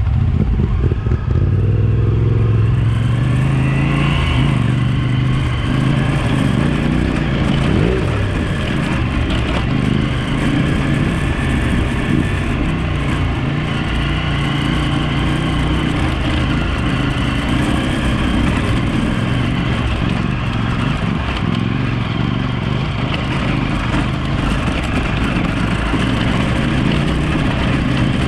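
Single-cylinder dual-sport motorcycle engine running steadily under way on a gravel trail, heard from the rider's own bike, its pitch shifting with the throttle. Wind hiss and the clatter of stones under the tyres are mixed in.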